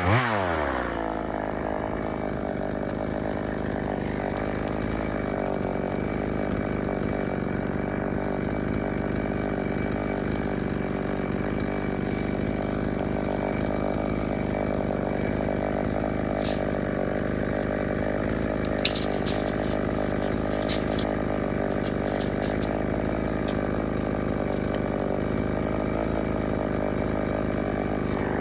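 EFCO chainsaw revving up, then running at a steady high speed through a long cut in a log. A few sharp ticks come about two-thirds of the way through.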